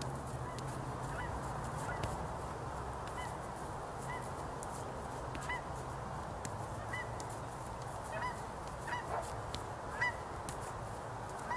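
Geese honking again and again, short calls coming about once a second, over a steady low background rumble.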